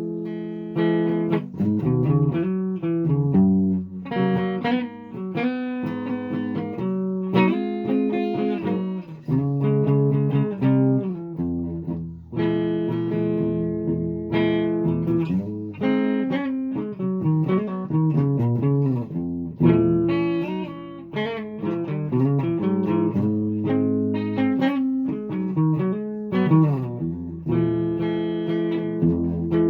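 Guitar playing: plucked notes and chords ringing and changing pitch.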